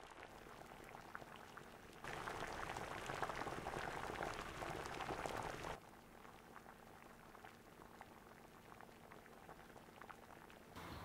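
Faint sizzling and bubbling of food cooking on the stove. It grows louder for about four seconds from two seconds in, then drops back to a low crackle.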